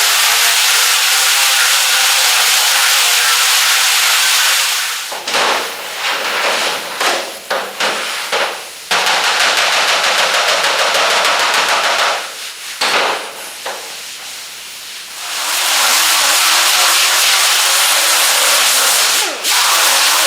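Angle grinder with a used sanding pad grinding the paint off a dollied-out dent in a car hood. It runs loud and steady, then cuts in and out several times in the middle as the pad is lifted off and put back on the metal.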